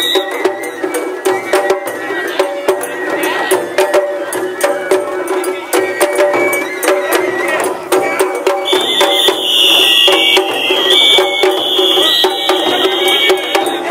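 Japanese festival float music: taiko drums on the float beaten in a rapid, busy rhythm, with crowd voices. About two-thirds of the way through, a high, shrill piping tone joins in and is held until just before the end.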